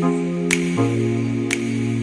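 Background music: calm sustained chords that change about halfway through, with a light tick on each beat about once a second.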